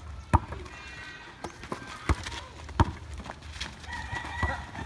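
A basketball bouncing and being played on a packed-dirt court: a handful of sharp, irregular thumps, the loudest about a third of a second in. A rooster crows in the background.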